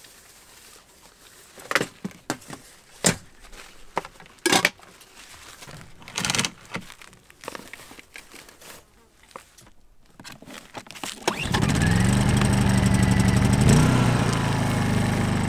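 Scattered clicks and knocks of gear being handled, then, about eleven seconds in, a Honda EU2200i inverter generator's small single-cylinder engine starts and runs steadily. Its pitch rises as it catches and steps up once more shortly before the end.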